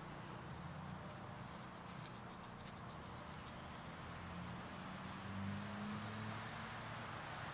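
American red squirrel gnawing at a nut: a fast run of small clicks and scrapes from its teeth on the shell, with a low steady hum underneath.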